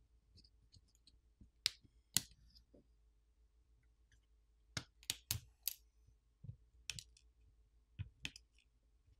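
Small sharp clicks of a plastic pry pick popping flex cable connectors, the battery cable first, off a smartphone's circuit boards. A few scattered clicks, then a quick run of four about halfway through and two more near the end.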